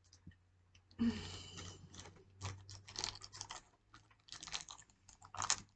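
Packaging of a blind-bag toy crinkling and crackling in quick, irregular bursts of clicks as it is torn and opened by hand.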